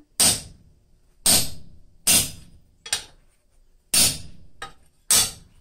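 Hand hammer striking a punch to drive it through red-hot steel on an anvil, punching a hole through one half of a pair of blacksmith tongs from the second side. Five heavy blows about a second apart, with two lighter taps between them, each ringing briefly.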